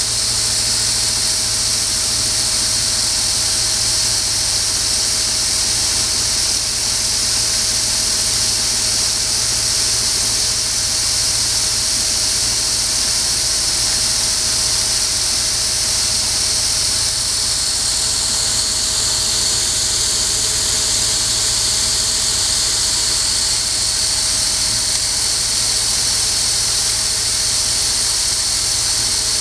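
Small stainless-steel olive paste machine running steadily while it crushes olives into paste: an even, high-pitched whir with a constant tone and a low hum underneath.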